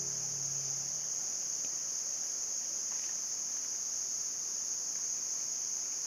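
A steady, high-pitched chorus of insects, one continuous drone. A faint low hum underneath fades out about a second in.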